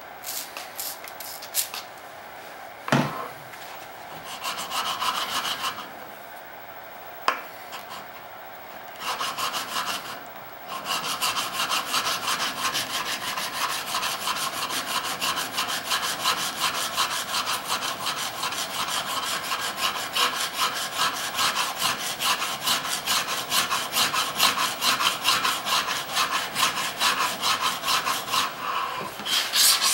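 A steel chisel rubbed back and forth on a wet DMT diamond sharpening stone, a gritty scraping that settles into quick, steady strokes about a third of the way in. He is lapping the chisel's back flat to grind out a hollow spot left by a belt sander. Before the steady rubbing there are a few short squirts of water from a spray bottle onto the stone.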